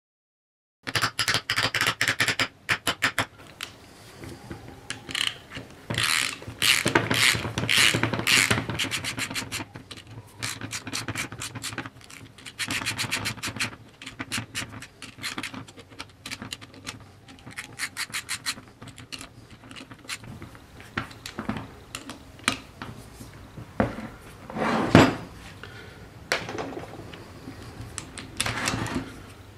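Hand tools and metal parts worked on an old lathe chuck and its backplate. A quick run of ratchet-like clicking comes first, then irregular metal scraping, rubbing and knocking, with one louder knock late on.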